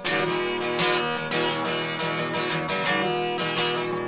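Strummed acoustic guitar music that starts abruptly.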